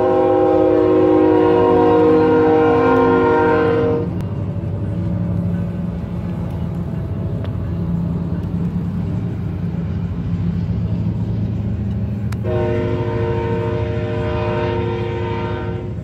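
Freight train's air horn sounding a steady chord in two long blasts: the first cuts off about four seconds in, and the second begins about twelve seconds in. Under it runs the low, steady rumble of the diesel locomotives and freight cars rolling past.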